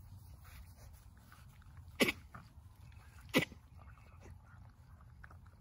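Two short, sharp sneezes from a young Labrador puppy eating kibble, about a second and a half apart, with faint ticks of puppies feeding from a metal bowl between them.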